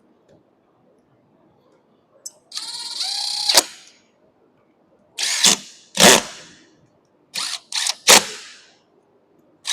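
A cordless power driver whirs for about a second, its pitch rising slightly and ending in a click. It is followed by several sharp clacks of metal tools or parts being set down on the bench.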